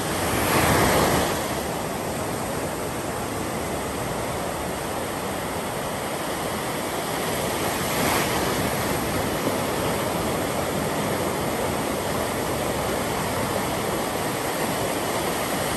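Small waves of a calm sea washing onto a sandy beach in a steady rush of surf, with one wave breaking louder about a second in and another swell about halfway through.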